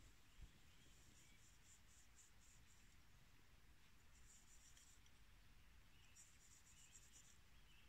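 Near silence: faint, very high chirping trills of a small bird come three times, and there is a soft low thump about half a second in.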